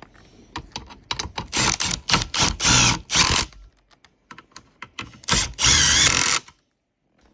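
Power drill/driver running seat-bracket bolts into a car seat frame in short bursts, with clicks of metal parts and tool handling; the longest run comes about five seconds in, its motor whine wavering.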